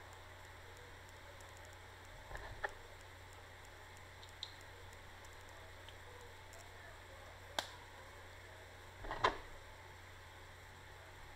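Scattered small clicks and taps of Honda key blades and a plastic key head being handled, about five in all, the loudest a short cluster near the end, over a steady low hum.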